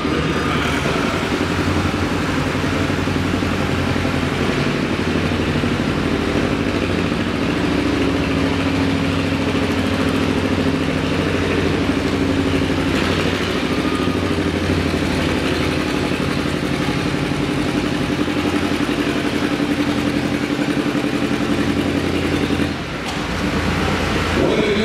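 Two-cylinder John Deere tractor engine working steadily under load as it drags a weight-transfer sled through dirt, with a brief dip in loudness near the end.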